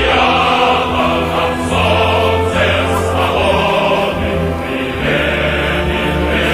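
Background music: a choir singing slow, sustained chords over a steady bass line.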